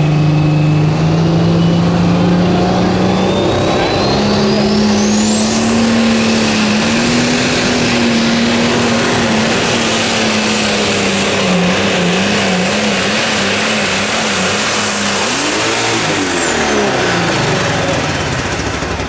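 Turbocharged pulling tractor engine at full power under load. The turbocharger whistle climbs to a high scream over the first six seconds, holds, and falls away near the end as the engine comes off throttle. The engine note rises, wavers in the middle and drops off about sixteen seconds in.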